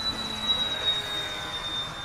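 Radio-controlled model airplane's motor whining in flight, one steady high tone that falls slightly in pitch.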